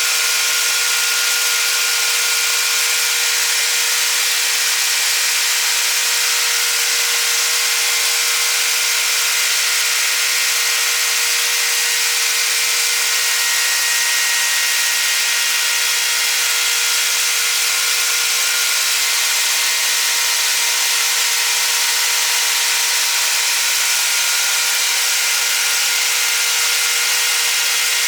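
Metalworking milling machine running at a steady speed and feed while cutting metal: a continuous, even hiss with several steady whining tones, unchanging throughout.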